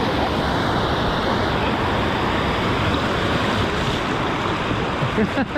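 Steady rush of river water pouring over a rock ledge into a whitewater riffle, with wind buffeting the microphone.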